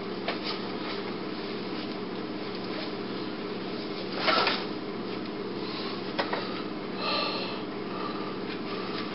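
Soft rustles and small knocks of hand puppets and their cloth costumes being handled, set down and picked up, the loudest rustle about four seconds in, over a steady low room hum.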